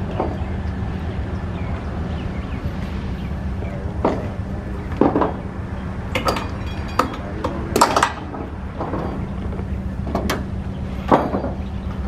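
Steady low engine hum, with a few short knocks and clicks scattered through it.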